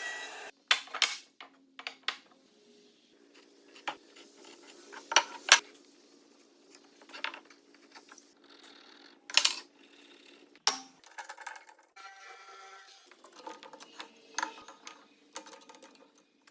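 Irregular sharp knocks and metallic clinks, about a dozen strikes scattered a second or more apart, with two close pairs the loudest, over a faint steady hum.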